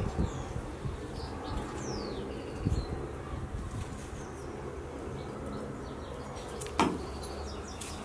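Quiet background with a steady low rumble and a few faint high chirps from small birds, one falling in pitch about two seconds in; a short knock sounds about seven seconds in.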